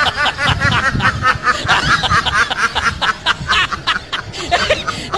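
Domestic duck quacking in a fast, unbroken run of short calls, several a second, that sounds like laughter.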